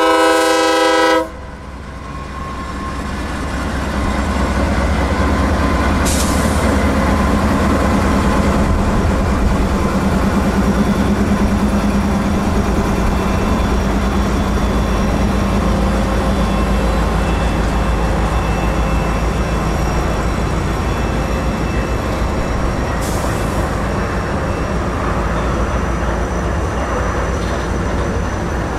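A diesel locomotive horn sounds a chord and cuts off about a second in. Then a string of CSX diesel freight locomotives pass slowly at close range with a steady, loud engine rumble. They are easing a stopped freight train gradually into motion so that the slack between the cars comes out gently.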